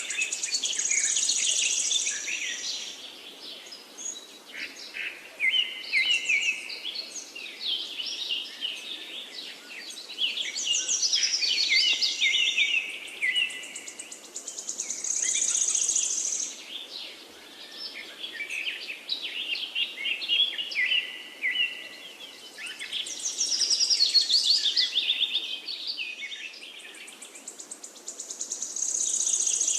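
Songbirds singing in repeated phrases of fast trills and chirps, a new phrase every few seconds, over a faint steady background hiss.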